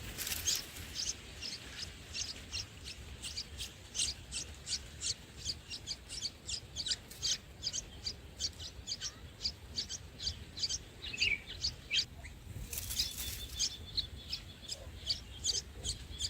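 Bulbuls at their nest chirping: a long run of short, high chirps repeating about three to four times a second, with a brief rustling burst about thirteen seconds in.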